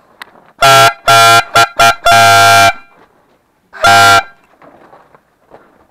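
Toy horn (a дуделка) blown hard in a string of loud honks: five in quick succession, the last the longest, then one more after a short pause.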